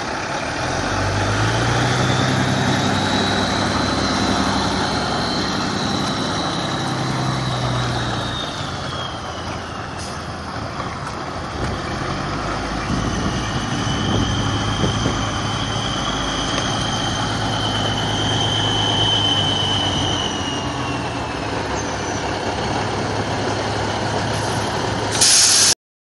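Heavy wrecker tow truck's diesel engine running as the truck moves under load, with a high whine that rises and falls twice. A short loud burst of noise comes near the end.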